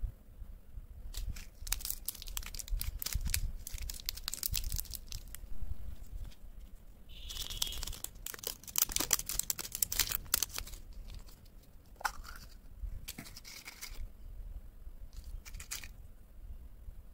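Plastic and foil candy wrappers crinkled and torn open by hand close to the microphone, in irregular crackly bursts that are busiest in the middle.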